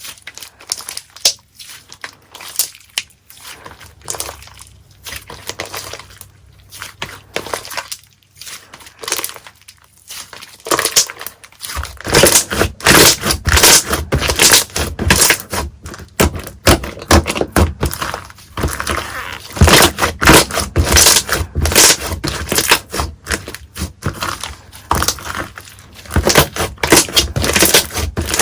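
Slime being squished and poked by hand, giving a dense run of crackles and clicks. It is sparser and quieter at first, then much louder and busier from a little before halfway.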